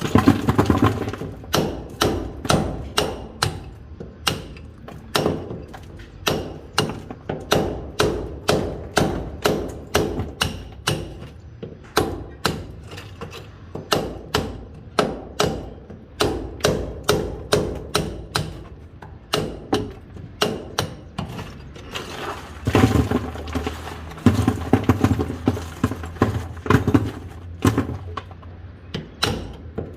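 Hammer and chisel chipping a masonry wall: sharp metal-on-stone blows at about two a second, heavier and fuller for a few seconds near the end.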